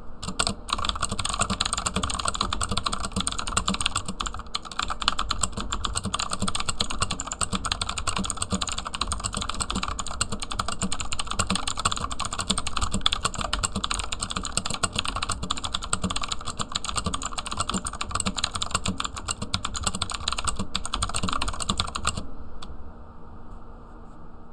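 Fast, continuous typing on a HUO JI E-Element Z-77 mechanical keyboard with clicky Outemu Blue switches, a dense run of key clicks that stops near the end.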